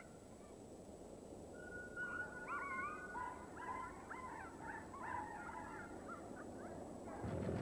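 Faint, overlapping wavering animal calls, some held and some sliding in pitch, over a low steady outdoor hiss. They begin about a second and a half in and die away near the end.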